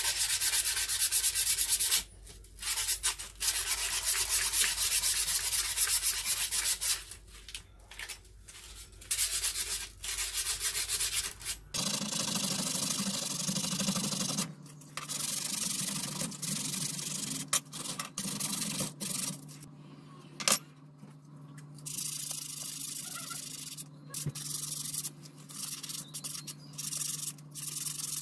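Sandpaper rubbed by hand along a rusty steel wrench to sand off the rust: quick scratchy back-and-forth strokes in bursts of a few seconds with short pauses between them.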